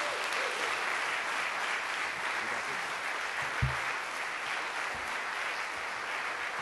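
Audience applauding steadily, with a single low thump about halfway through.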